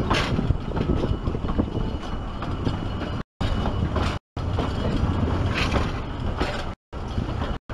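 Narrow-gauge railway carriages running along the track: a steady rumble and clatter of wheels on rails, heard from inside a moving carriage. It is broken four times by short gaps of dead silence.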